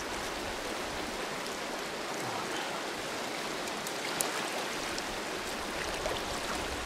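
A shallow, stony stream flowing with a steady rushing sound. Two brief sharp clicks stand out, about four seconds in and again near the end.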